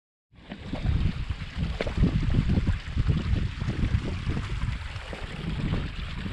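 Wind buffeting the microphone outdoors: a low, gusty rumble that rises and falls, over a steady rushing hiss. It cuts in suddenly right at the start.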